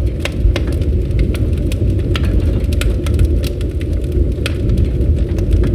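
Campfire burning: a steady low rumble of flames with irregular sharp crackles and pops from the burning wood.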